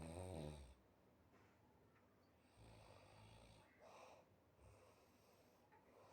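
A sleeping man snoring quietly: a rattling snore right at the start, then another lower snore about two and a half seconds in, with softer breaths after it.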